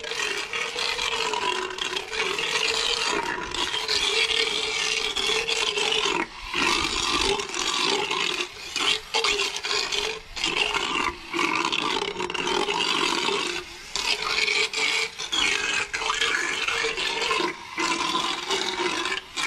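Motorized equine dental float running and grinding down a horse's lower cheek teeth: a steady motor whine over a harsh rasping grind, dropping out briefly several times as the float is eased off the teeth.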